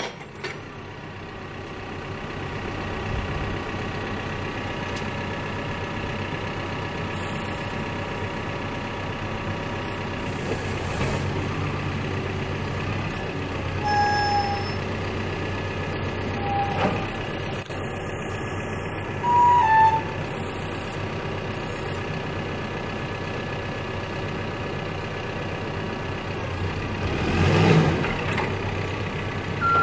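Caterpillar backhoe loader's diesel engine running steadily, with a few short high tones in the middle and a brief rise in engine noise near the end.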